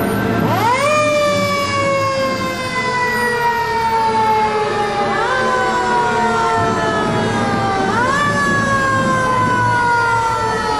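Fire truck siren winding up quickly and then slowly falling in pitch, three times, over a low rumble.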